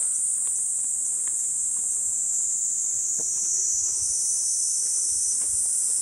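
Steady high-pitched drone of cicadas singing, shifting slightly lower about four seconds in, with a few faint rustles of a mesh insect net being handled.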